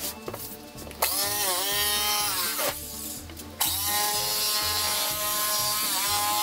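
Jigsaw cutting through MDO plywood. It starts about a second in, makes a short cut and stops, then starts again and cuts steadily, its motor pitch dipping briefly under the load of the cut.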